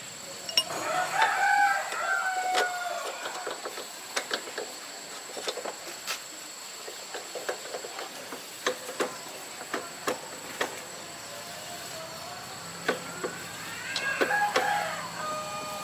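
A rooster crowing twice, once about a second in and again near the end, with scattered sharp clicks and taps in between.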